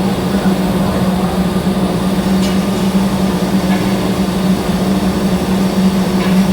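TIG welding arc running steadily: a continuous electrical hum and buzz.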